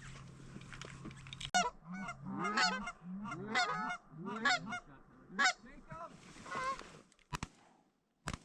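Goose honking: a run of about seven honks over roughly five seconds, starting suddenly after a sharp click. Two more sharp clicks come near the end.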